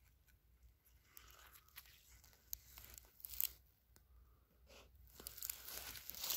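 Faint crunching and crackling of dry crop stubble underfoot as someone walks through a field, with scattered light clicks that grow louder near the end.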